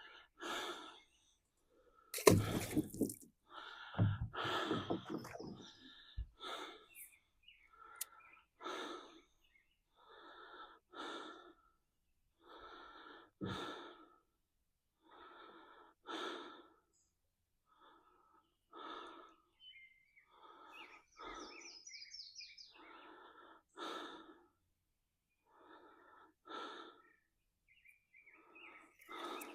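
A man's heavy breathing, a noisy puff every one to two seconds, with a louder burst of noise about two seconds in. The heavy breathing comes from chest congestion and bronchitis.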